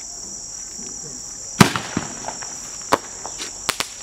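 Scattered firework bangs and pops, the loudest about a second and a half in and a few more near the end, over the steady high trill of crickets.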